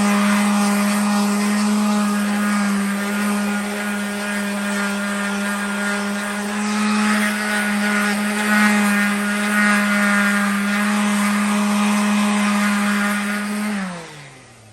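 An electric power-tool motor running at a steady pitch, then switched off near the end and winding down with a falling pitch.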